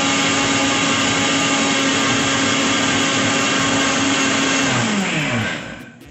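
Electric mixer-grinder running steadily at full speed, its motor grinding dry rolled oats into flour in a stainless-steel jar. About five seconds in it is switched off and the motor's pitch falls as it spins down to a stop.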